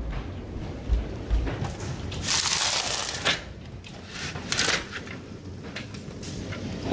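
Hail clattering on the house and windows: a noisy patter with scattered irregular knocks, and a louder rush of noise lasting under a second about two and a half seconds in.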